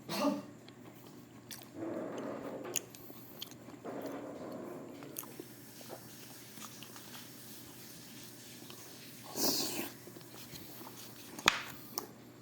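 Close-up mouth sounds of a person biting and chewing food, coming in several separate bursts, with one sharp click near the end.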